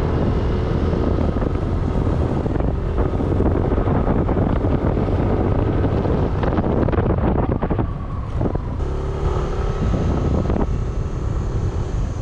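Wind rushing and buffeting over the microphone of a moving motorbike, with the bike's engine running steadily underneath.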